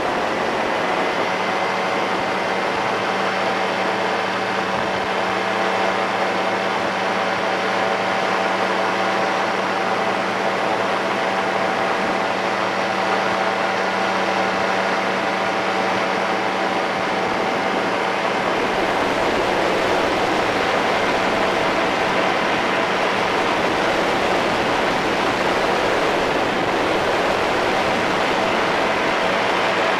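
Powered parachute's engine and propeller running steadily in cruise flight, heard from on board with wind rushing over the microphone. A deeper low rumble joins about two-thirds of the way through.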